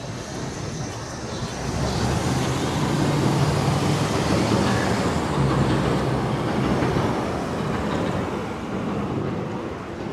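A large vehicle passing close by: a rumble that swells over about two seconds and then slowly fades away.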